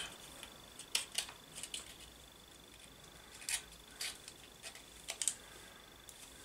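Small scissors snipping round the edge of a thin clear plastic model canopy: a string of short, sharp snips at an uneven pace.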